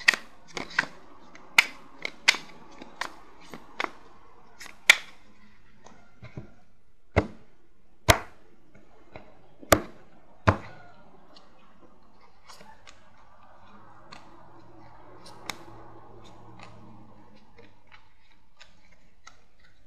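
Tarot cards being handled and dealt face down onto a table: a run of sharp, irregular slaps and snaps as cards are flicked and laid down, loud and frequent for about the first ten seconds, then only a few faint ones.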